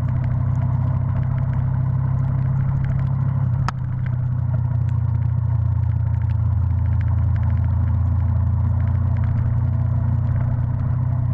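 Engine of the camera's vehicle running steadily while driving on the road, a low even hum. There is one sharp click a little under four seconds in.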